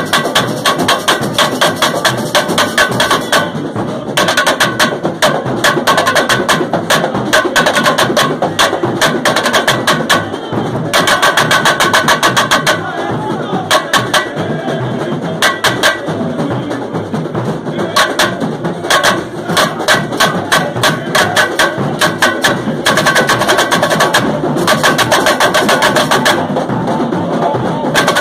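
A samba bateria playing, led by a section of tamborins, small hand-held frame drums struck with sticks in fast, sharp, interlocking patterns over the deeper drums of the rest of the bateria. The tamborin strikes drop out briefly several times, as the pattern pauses and comes back in.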